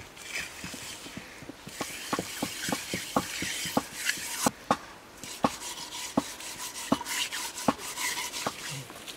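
A hand smearing wet mud over the outside of an aluminium pot: gritty rubbing with a steady run of light slaps and knocks on the metal, about two to three a second, starting about a second and a half in.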